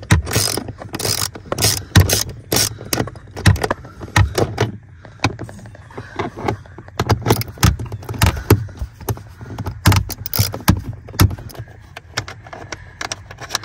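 Socket ratchet clicking and clinking as it works the bolts holding the gas pedal loose: a run of irregular sharp clicks.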